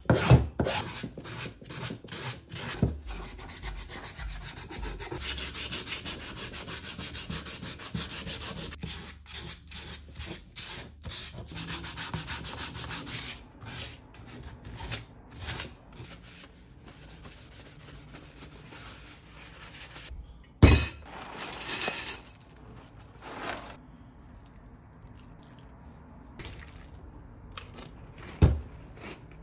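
Hand-finishing a carved wooden spoon: quick back-and-forth strokes of a flat metal file on the wooden handle, then steady rubbing of the wood against sandpaper. Two sharp knocks, one about two-thirds through and one near the end.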